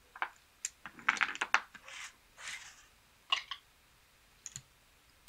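Clay casino chips clicking together and playing cards being swept off a felt blackjack table as a lost hand's bets are taken and the cards cleared: a quick run of sharp clicks about a second in, two soft swishes, then a few scattered clicks.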